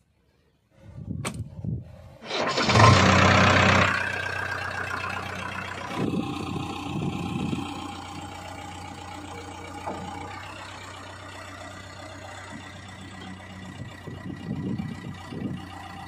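JCB 3DX backhoe loader's diesel engine being started: the starter cranks about a second in, the engine catches and revs loudly for about a second and a half, then settles into a steady idle.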